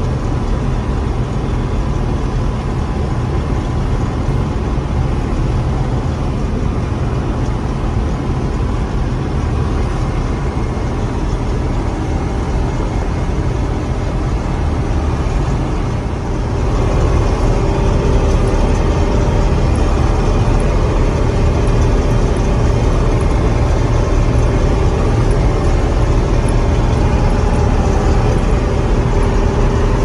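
John Deere 6600 combine running under load while harvesting soybeans, heard from inside the cab: a steady engine and threshing drone. About halfway through it grows louder, with a stronger steady whine.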